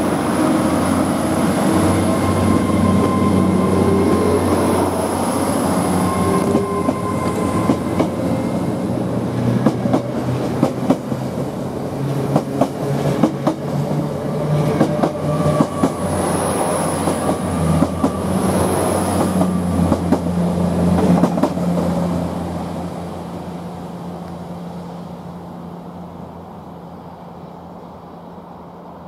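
Great Western Railway Intercity Express Train (Hitachi bi-mode unit) running past: a steady drone with a high whine and wheels clicking over rail joints. The sound fades away from about 22 seconds in as the train leaves.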